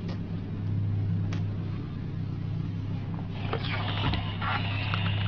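A steady low hum with a couple of faint clicks. About three and a half seconds in, close rustling and brushing starts, as something moves right against the toppled camcorder.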